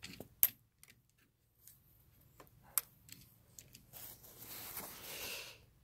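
Faint handling of a CVA Wolf .50 calibre break-action muzzleloader as its breech is opened to fit the missing primer: several sharp clicks in the first three seconds, then about two seconds of rustling near the end.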